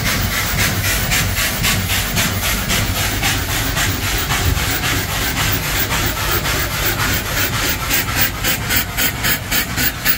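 A twin-cylinder V steam engine running under way, its exhaust steam chuffing in an even hissing beat of about four puffs a second over a steady low rumble.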